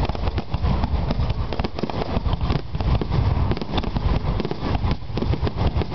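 Aerial fireworks shells bursting in quick succession, a dense, unbroken run of booms and crackles.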